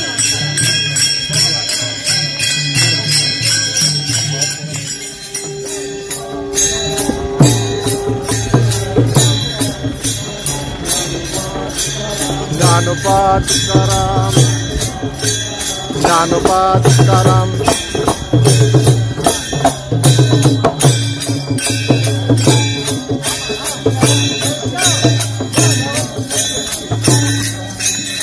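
Warkari devotional bhajan: small brass hand cymbals (taal) clashing in a steady rhythm over a low beat, with voices chanting in stretches.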